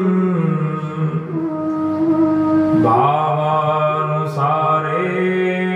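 A man chanting a Sanskrit hymn to the Ganga in a slow melody, drawing out long held notes. The pitch steps down early on, then dips and rises again about three seconds in.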